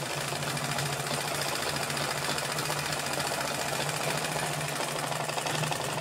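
Black-enamelled Liberty domestic sewing machine running steadily, stitching a folded hem: a rapid, even needle clatter over a constant hum.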